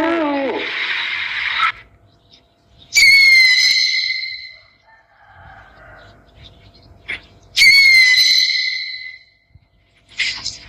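An owl calling. A wavering call at the start, then two long calls about four seconds apart, each sliding down from a high start to a steady pitch and fading. A short burst comes near the end.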